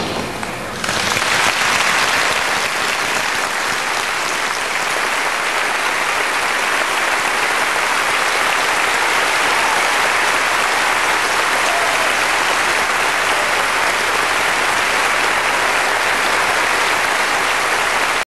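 Theatre audience applauding, a dense, even clapping that swells in about a second in and holds steady.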